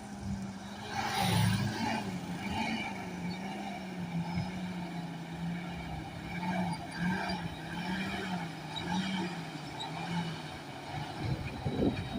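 Heavy diesel engine running steadily, its hum wavering gently in pitch and sinking slightly, with a louder burst of clatter about a second in.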